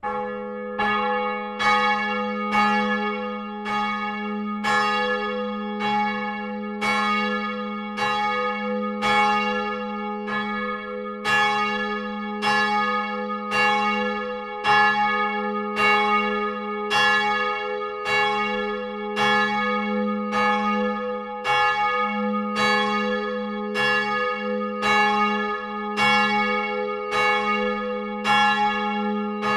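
Church bells ringing, strike after strike at about one and a half a second, each stroke leaving a long ringing hum under the next. They cut in suddenly at the start.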